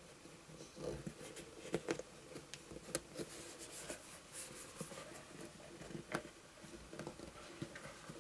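Faint handling sounds of a vinyl doll head and torso being pressed and turned together by hand: soft rubbing with scattered small clicks and taps, a few of them sharper.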